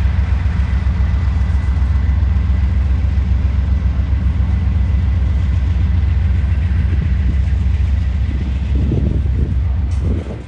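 Freight train rolling slowly past, a steady loud low rumble with a faint steady high-pitched tone above it; the rumble eases slightly near the end.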